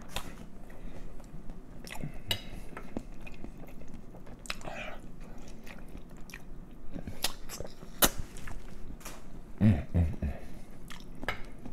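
Close-miked eating sounds of a man chewing tender smoked pork neck bones, with wet smacks and sharp mouth clicks scattered throughout. Near the end there are a couple of short low vocal sounds.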